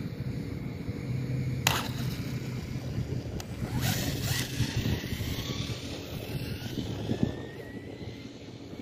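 WLtoys 124017 RC buggy taking off and speeding away over asphalt, its 4300kV brushless motor whining and rising in pitch as it accelerates, with wind on the microphone. A sharp click about two seconds in.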